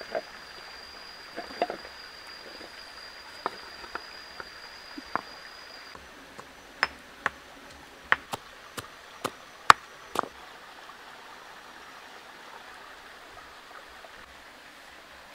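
Steady rush of a stream with a scatter of sharp cracks and clicks through the first ten seconds or so, coming about twice a second near the end. A thin, steady high whine runs over it for the first six seconds.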